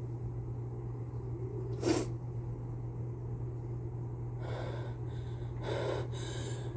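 A person with a cold lets out a short, sharp burst through the nose about two seconds in. Near the end come several catching, breathy inhalations as another sneeze builds.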